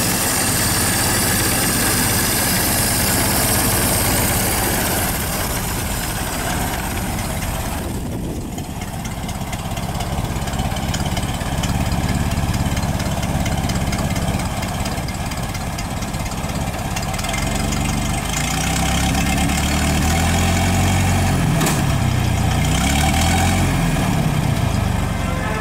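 1926 Ford Model T's four-cylinder flathead engine running steadily at idle, then the car driving off, with the engine speed rising and falling several times in the second half.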